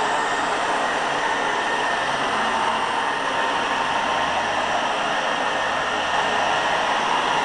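Old Hoover carpet cleaner running steadily: an even rush of air with a constant motor whine. Its owner calls it a little loud.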